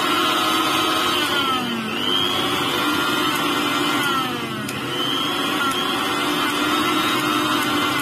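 Mixer grinder's motor running with no jar fitted, a loud whine that drops in pitch and picks up again twice as the speed knob is switched, starting to drop once more at the end. This is a test run after replacing the motor's bushes.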